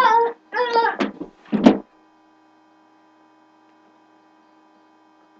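A person's voice yelling in three short high-pitched cries over the first two seconds, then near silence with only a faint steady hum.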